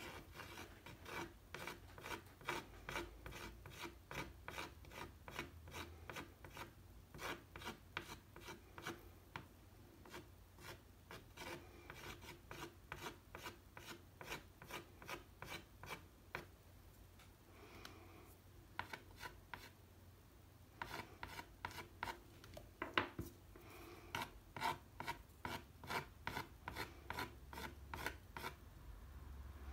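A pastel stick scratching across textured watercolour paper in quick, repeated hatching strokes, about three or four a second, with a couple of short pauses past the middle.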